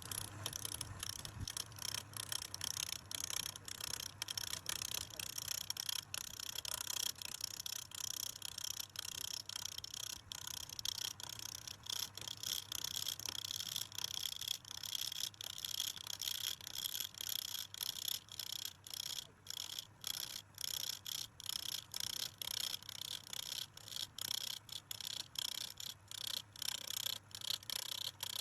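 Turning tool cutting into wood on a spinning lathe: a steady, hissing scrape, broken by frequent short gaps as the tool comes off and back onto the wood.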